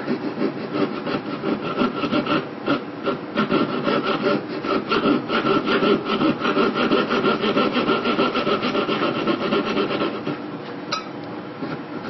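A fine jeweler's saw blade, held fixed in a wooden block, cuts into the metal tongue of a bracelet clasp in quick, rhythmic rasping strokes, squaring off the worn, rounded crease so the clasp will grip again. The sawing stops about ten and a half seconds in, and a single click follows.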